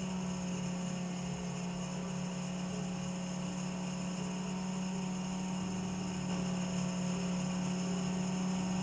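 Watchmaker's lathe running under its electric motor and belt drive: a steady hum with one strong low tone and fainter higher tones above it.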